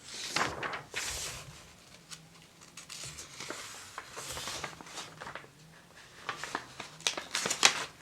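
Glossy paper pages of a mail-order catalog being handled, rustling and crinkling, with a run of sharp crackles and taps near the end.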